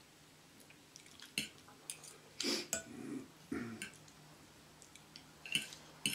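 Eating sounds close to the microphone: wet chewing and lip-smacking, with scattered small clicks of a knife and fork on a plate.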